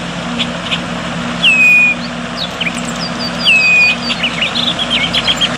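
Bird calls: twice a clear whistle that drops and then holds its pitch, among many short chirps. Under them runs a steady low hum.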